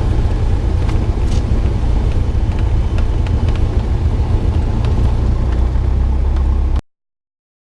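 Aircraft noise: a loud, steady low rumble with a few faint clicks, cutting off abruptly near the end.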